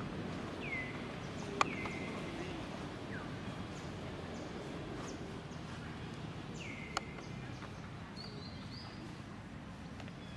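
Short, high chirping calls that fall in pitch, repeated at irregular intervals over a steady background noise, with two sharp clicks.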